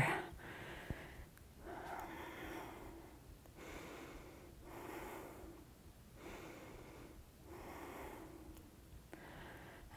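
A woman breathing slowly and faintly: three deep breaths, in and out, each in-breath and out-breath lasting one to two seconds.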